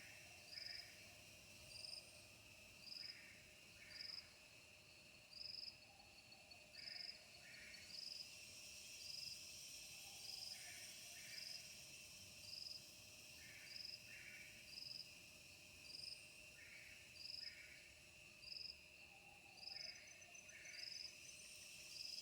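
Faint chorus of crickets and other insects with a high chirp repeating a little under once a second. Pairs of lower notes come every few seconds over a steady background drone.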